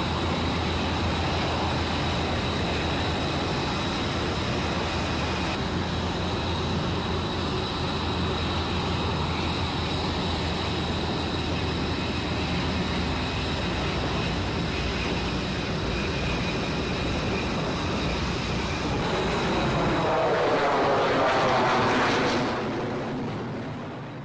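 HH-60 Pave Hawk helicopter flying low: a steady high turbine whine over a low rotor hum. Near the end the noise swells and sweeps down in pitch as an aircraft passes close, then fades away.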